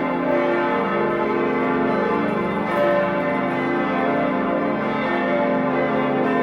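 Several church bells of Freiburg Minster ringing together in a full peal, their strokes overlapping into a continuous, steady ring of many pitches.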